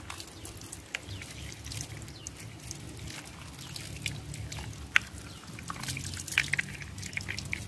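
Thin stream of water pouring over a small plastic toy truck held in the hand and splashing onto wet concrete, with scattered drips and short sharp clicks.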